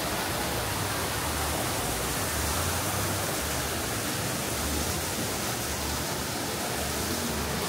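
Steady rush of fast, high-running water from the flooded stream at the water-powered grist mill, with uneven low rumbling underneath; it cuts off suddenly at the end.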